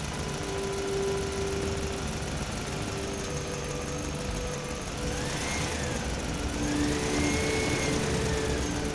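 Excavator's diesel engine running steadily, with a whine that rises and falls in pitch twice in the second half.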